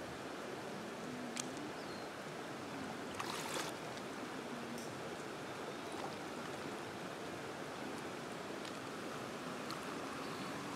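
Shallow river flowing steadily over rocks, with a few brief splashes and knocks from someone wading through it, the largest about three seconds in.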